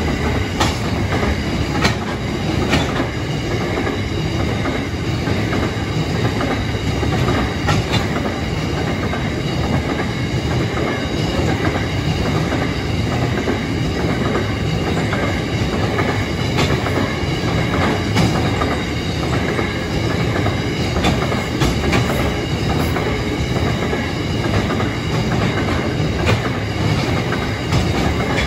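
Coal hopper wagons of a freight train rolling steadily past at close range: a continuous rumble of steel wheels on rail, broken by irregular clicks and clacks.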